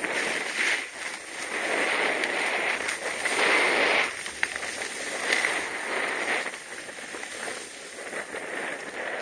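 Snow hissing and scraping under a rider's edges sliding down a ski piste, swelling and easing in surges with the turns, loudest about three to four seconds in. A single sharp tick comes just after the loudest surge, and wind buffets the microphone.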